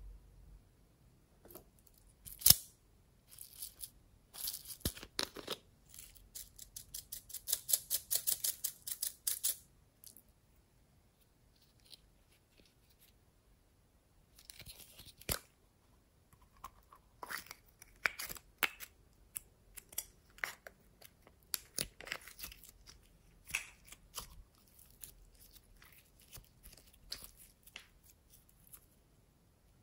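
Small plastic bottles of glitter and sequins tapped and shaken over a tray of slime: scattered sharp clicks, and a fast rattling run of shakes lasting about three seconds. Later come more clicks and taps from handling a plastic pineapple-shaped slime container.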